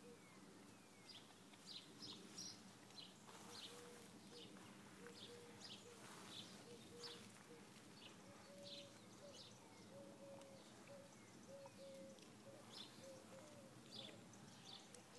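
Faint chirping of small birds, short high notes repeating every second or so, over a low steady hum.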